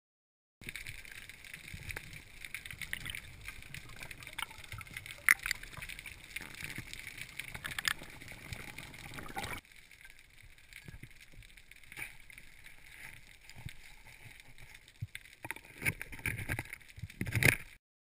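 Underwater sound picked up by a camera in its housing: a steady muffled water hiss with scattered sharp clicks, quieter after about ten seconds. Near the end come several louder knocks and scrapes as gloved hands work among the rocks.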